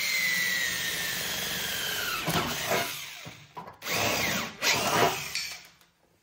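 Cordless drill boring through the sheet-steel radiator support panel of a car. The motor's whine falls steadily over about two and a half seconds as the bit bites, then a few shorter bursts on the trigger follow.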